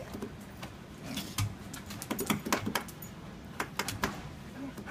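A briard's claws clicking and tapping on a hard countertop in irregular clusters of quick taps, about a second in, again around two to three seconds in, and near four seconds in.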